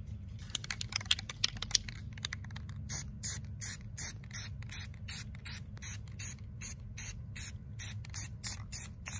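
Aerosol can of spray primer: a regular run of short, high, rattling bursts, about three a second, starting about three seconds in after a few lighter clicks, over a steady low hum.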